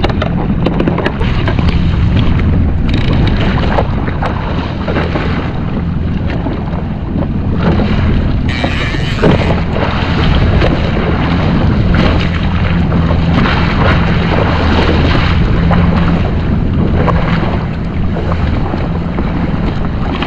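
Yamaha SHO jet ski engine running steadily, with wind buffeting the microphone.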